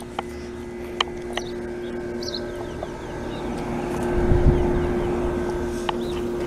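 Heat pump outdoor unit humming steadily, with a few short bird chirps over it. A low rumble swells about four seconds in and fades.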